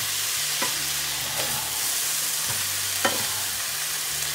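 Stir-fried vegetables in sauce sizzling in a frying pan as they are turned over with a wooden spatula, with a few short knocks of the spatula against the pan.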